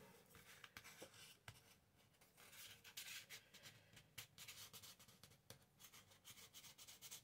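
Near silence with faint paper handling: soft rubbing and a few light taps as hands work a glued paper page.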